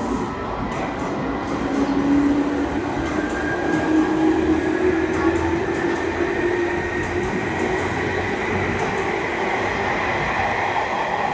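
Electric commuter train (KRL EMU) pulling away from the station: the traction motors give a slowly rising whine over the steady rumble of the wheels on the rails.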